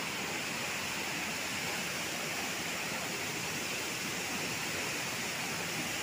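Waterfall rushing steadily: an even, unbroken noise of water falling onto rocks and into a pool.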